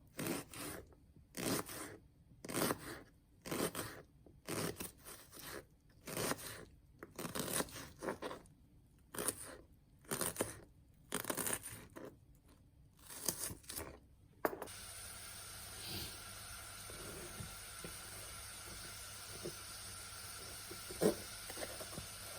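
Rough scraping strokes, repeated unevenly about once a second for some fourteen seconds during food preparation. They stop at a sudden cut to a steady faint hiss, with a single click near the end.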